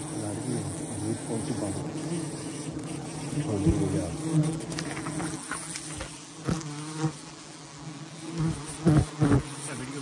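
A swarm of honeybees buzzing in a steady hum around a wild honeycomb being harvested, with a few short knocks and thumps, the loudest two close together near the end.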